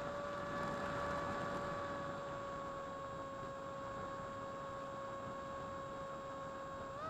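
Electric motor and propeller of a 70% Versa Wing flying wing, heard from its onboard camera: a steady whine that sags slightly in pitch, then steps up sharply near the end as the throttle comes up, over a rush of wind noise.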